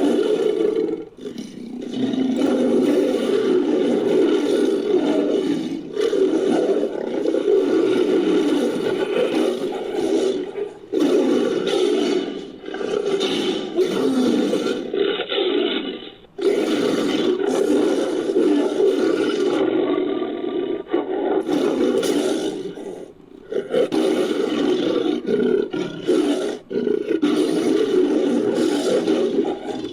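Designed creature roars for the sabre-toothed cat Barbourofelis fricki, mixed from big-cat and Smilodon roar recordings: a string of long, loud roars and growls, each running several seconds, with short breaks between them.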